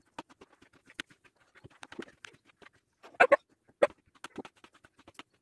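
Kitchen knife slicing raw potato into thin rounds on a plastic cutting board: a run of quick, irregular clicks of the blade meeting the board, with a few louder knocks a little past the middle.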